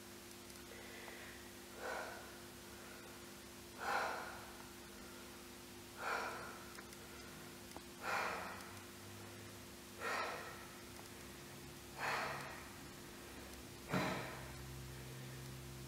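A person breathing hard and audibly, with a sharp gasp-like breath about every two seconds, seven in all, each quickly fading, over a steady low electrical hum.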